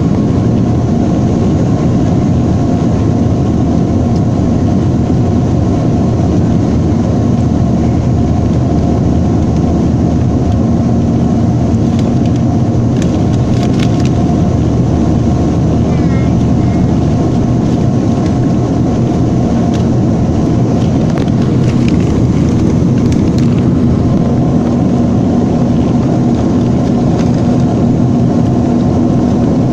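Steady cabin noise of a Boeing 737-300 in flight: the drone of its CFM56 engines and the rush of air, heard from inside the cabin, with a few faint clicks about halfway through.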